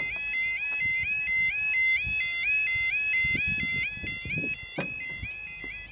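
UK level crossing warning alarm sounding with the barriers down: a two-tone electronic yodel that repeats about three times a second, warning that a train is approaching. A few dull knocks and a sharp click come about five seconds in.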